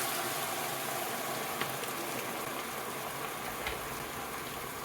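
Pot of tomato and onion sauce sizzling and bubbling just after boiling water has gone in. It is a steady hiss that slowly fades, with a couple of faint ticks.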